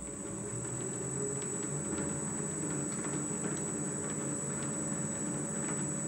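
South Bend 13-inch lathe running, its end gear train turning: spindle drive, reversing gears, 80-tooth idler and change gears meshing with a steady hum and light irregular gear-tooth ticking. It gets a little louder over the first second, then runs steadily.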